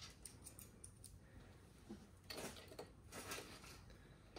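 Faint small clicks and metal handling noises as M5 bolts are fitted and turned with an M3 Allen key, with a louder scraping stretch a little past halfway.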